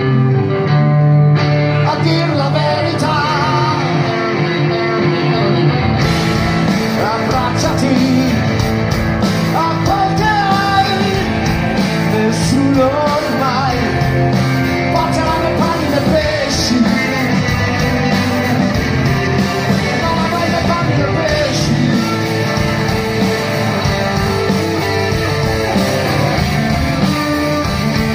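Live rock band playing a passage of the song with electric guitars and drums. The sound fills out in the upper range about six seconds in, as the full band comes in.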